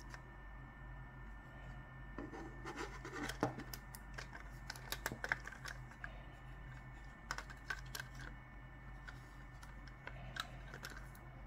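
Light clicks, taps and scraping from a Logitech MX Master mouse being handled and worked on, in scattered bunches with pauses between, the sharpest click about three seconds in.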